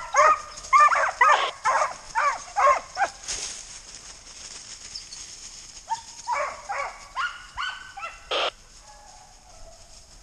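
Deer hounds barking in quick runs of short calls, about three a second, in a first burst at the start and another about six seconds in: the pack giving voice as it runs a deer during a dog drive.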